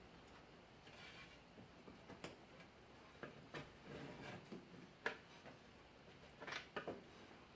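Faint, irregular clicks and taps of a window stick prying a stiff new rubber lock-strip gasket over the edge of flat glass, with the sharpest click about five seconds in and a quick cluster near the end.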